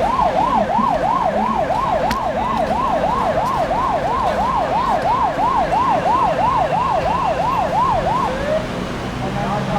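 Emergency vehicle siren in a fast yelp, its pitch sweeping up and down about three times a second. It stops about eight seconds in.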